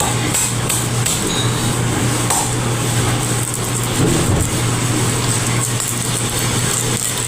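A motor running steadily with a low, even hum and a noisy hiss over it.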